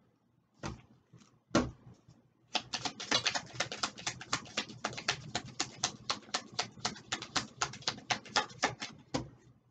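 Oracle cards being shuffled by hand: two separate taps, then from about two and a half seconds a fast, even run of card slaps, about six or seven a second, stopping just before the end.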